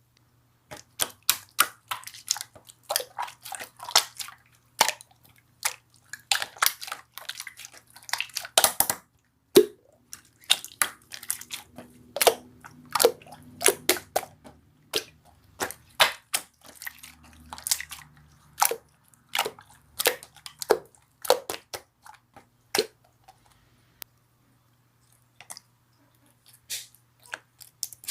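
Slime being pressed and squeezed by hand, giving dense irregular clicking and popping sounds that thin out to a few pops near the end.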